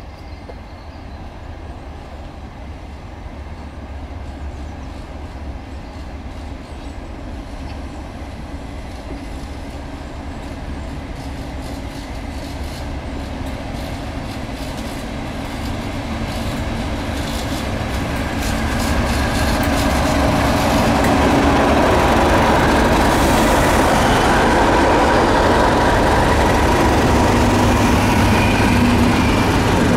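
Two British Rail Class 37 diesel locomotives, each with an English Electric V12 engine, top-and-tailing a single test coach as they approach and pass. The engine drone grows steadily louder for about twenty seconds, with wheel clicks on the rails as the lead locomotive nears, then stays loud as the locomotive and coach go by.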